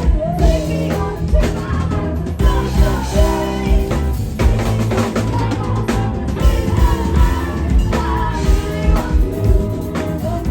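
Live band playing with a drum kit keeping a steady beat and a singer's voice over it.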